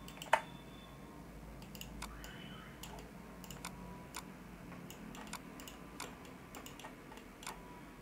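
Computer mouse clicking: about a dozen scattered, irregular clicks, the loudest about a third of a second in, over a faint steady background hum.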